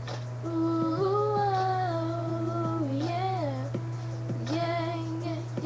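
A young girl's voice singing long held notes that bend and glide in pitch, over quiet backing music, with a steady low hum underneath.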